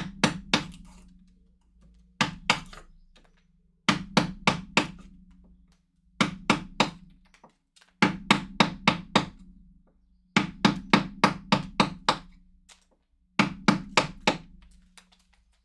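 Mallet striking a wood-carving chisel, in quick runs of four to six sharp blows with short pauses between them.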